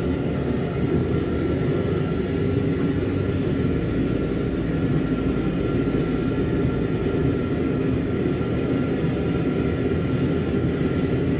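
Forge running with a steady rumble while a 1095 steel knife blade is heated for normalizing.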